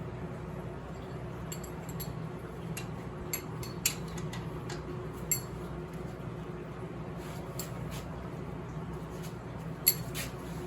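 Wrenches and metal motorcycle parts clinking and tapping now and then during hand disassembly, the sharpest knock near the end, over a steady low hum.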